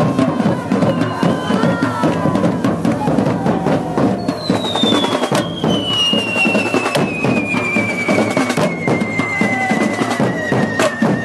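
Correfoc drum band beating a steady, driving rhythm amid the hiss and crackle of hand-held spark-fountain fireworks. About four seconds in, a long high whistle sets in and falls slowly in pitch almost to the end.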